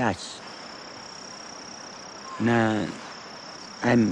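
A steady, high-pitched insect trill that breaks off about halfway through and comes back, between short phrases of a man speaking.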